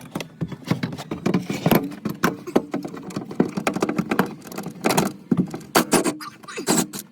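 Hand tools clicking and knocking against metal in irregular strokes as stubborn strut-tower bolts are worked loose.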